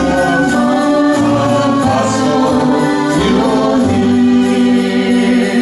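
A woman and a man singing a Christmas song together in long held notes, over an accompaniment with a steady bass line.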